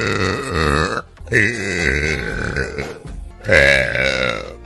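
A young woman burping loudly: three long, drawn-out burps in quick succession. The first is already under way and stops about a second in.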